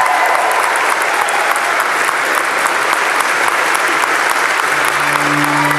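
Church congregation and wedding party applauding steadily for a newly married couple.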